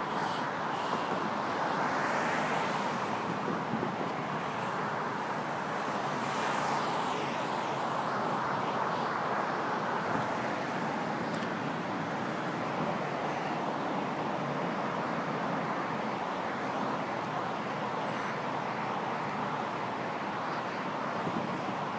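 Steady hiss of road traffic, swelling as cars pass.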